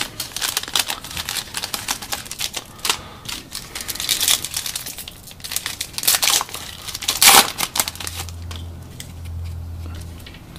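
Foil wrapper of a trading-card pack crackling and crinkling as it is handled and torn open by hand, with one loud rip about seven seconds in. It is followed by a quieter low hum.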